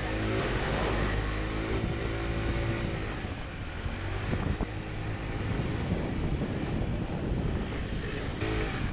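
Motor scooter engine running while riding along, with heavy wind noise on the microphone. The engine's hum is clearest in the first few seconds, then the wind and road rumble take over.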